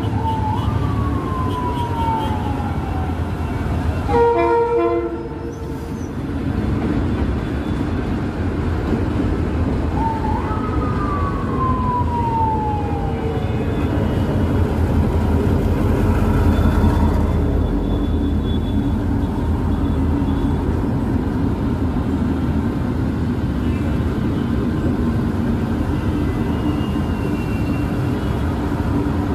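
Diesel locomotive pulling a passenger train into the station, its engine and wheels rumbling steadily and loudest about two-thirds of the way through. A short horn blast sounds about four seconds in, and a siren wails twice, each time rising quickly then slowly falling, near the start and about ten seconds in.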